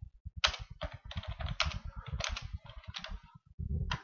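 Typing on a computer keyboard: a quick, continuous run of key clicks.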